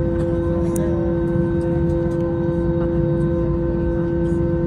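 Airbus A320's jet engines running steadily at low thrust, heard from inside the cabin: a hum of several fixed tones over a low rumble, with no rise in pitch.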